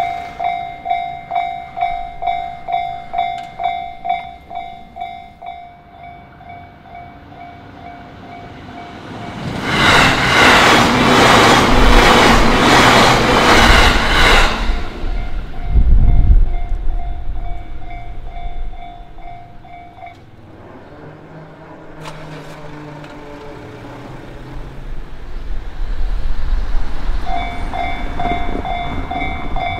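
Japanese railway level-crossing alarm ringing its rapid 'kan-kan' at about two strokes a second. A train passes for about five seconds midway with wheels clacking over the rail joints. The alarm stops about twenty seconds in and starts ringing again near the end.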